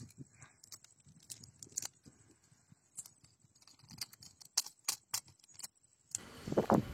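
Scattered light metallic clicks and clinks, like a spoon tapping and scraping in a pot of cooked noodles. A louder rustling noise starts near the end.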